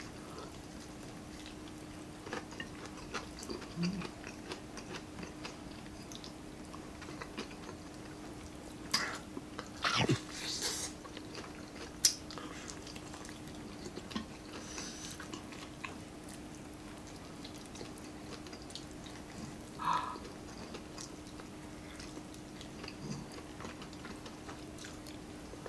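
People eating with their hands: quiet chewing and lip smacks with scattered small clicks and taps, a few louder ones near the middle, over a faint steady hum.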